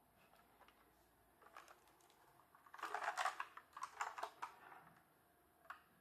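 Keychron C1 mechanical keyboard handled and turned over: a quick run of light plastic clicks and clacks from its keycaps and case, bunched together for about two seconds in the middle, with a single click near the end.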